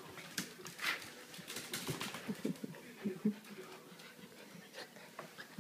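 A Keeshond puppy and a Pomeranian play-fighting: quick panting and short throaty sounds mixed with scuffling clicks of paws and fur, busiest in the first three and a half seconds.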